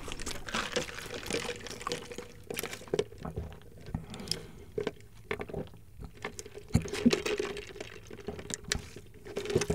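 Sipping a drink through a plastic straw from a paper cup, close to the microphone: liquid drawn up the straw with many small wet clicks.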